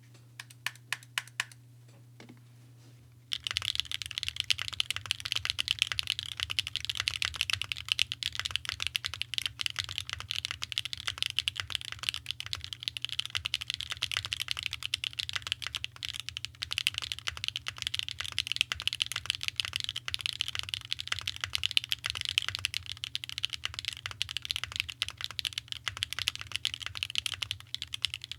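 Mode Envoy mechanical keyboard with stock SWK Catmint switches on an aluminium plate, no foam, and JTK keycaps, being typed on: a few separate key presses at first, then fast continuous typing from about three seconds in.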